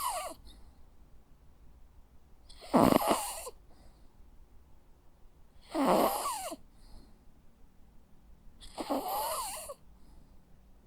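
Jack Russell terrier snoring in its sleep: three snores about three seconds apart, after the tail end of one at the very start. Each snore has a wavering pitch.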